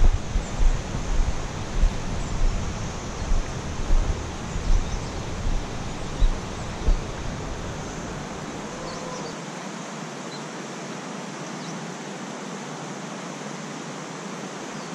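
Wind buffeting the microphone in gusts over a steady rushing hiss. After about eight seconds the gusts stop and only the even hiss remains.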